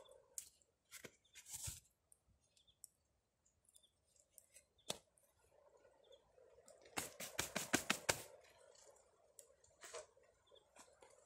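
Wood campfire crackling, with scattered single pops and a quick run of about eight sharp snaps around seven to eight seconds in.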